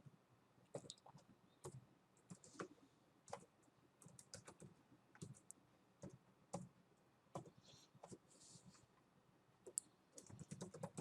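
Faint computer keyboard typing: scattered, irregular keystrokes with short pauses, coming a little quicker near the end.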